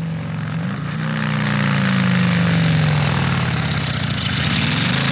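The 1989 Chrysler Fifth Avenue's engine running under throttle as the car drives. Its pitch rises about a second in, sinks slowly, and climbs again near the end.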